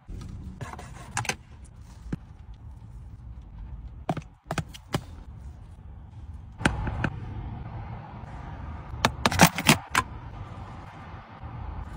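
A metal spoon and plastic dessert boxes clicking and tapping in short clusters as desserts are scooped and a lid is handled, over a low steady rumble inside a car.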